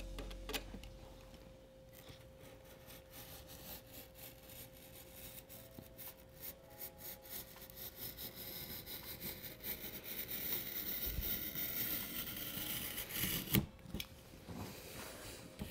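A blade cutting through cardboard: a long scraping cut that grows louder about ten seconds in, then a sharp knock near the end.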